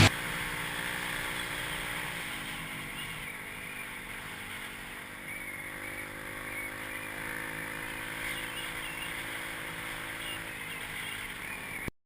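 Dirt bike engine running steadily at low speed, its pitch shifting slightly about two seconds in; the sound cuts off abruptly near the end.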